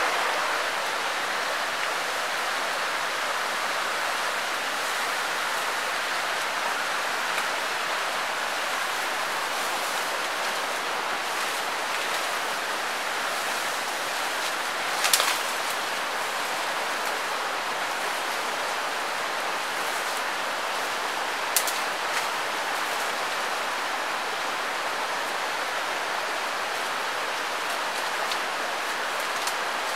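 Steady rushing of a forest stream, an even wash of water noise. Two sharp knocks cut through it, about fifteen and twenty-one seconds in.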